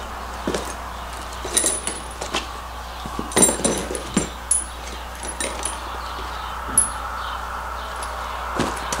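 Small steel hardware (bolts, washers and nuts) clinking and rattling as it is picked through in a cardboard box: an irregular scatter of sharp metallic clicks, some with a brief high ring.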